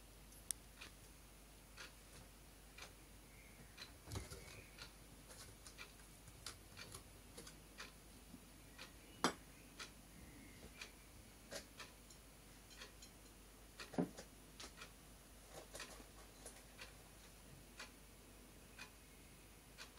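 Faint, even ticking about once a second, like a clock, with irregular small clicks and a few soft knocks among it, the loudest about nine and fourteen seconds in.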